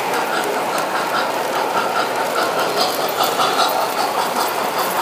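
Lionel model trains running on three-rail track: the steady running noise of their motors and wheels, with faint light clicking.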